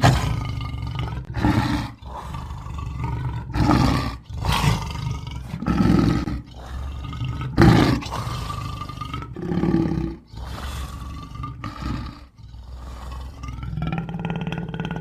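Dragon roar sound effects: a string of about ten growling roars, one every second or two, over a low rumble, the loudest near the start and about eight seconds in.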